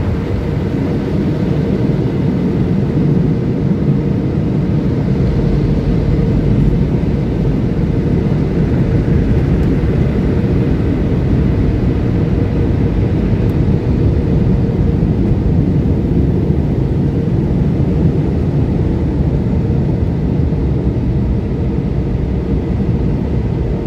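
Car wash air dryer blowers running: a loud, steady rush of air heard from inside the car's cabin, with a faint steady hum, as the car goes through the drying stage.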